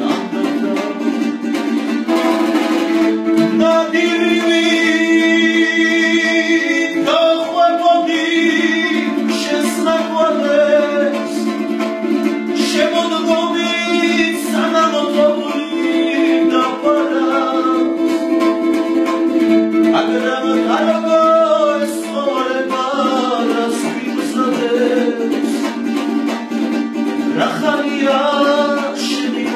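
A song: singing over plucked string accompaniment, with steady held low notes beneath the voice.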